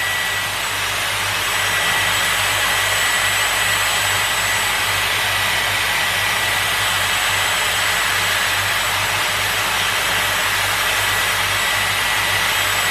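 Dyson Airwrap with a curling barrel blowing on its cool-shot setting, a steady rush of air with a thin, high motor whine, cooling a wrapped curl to set it.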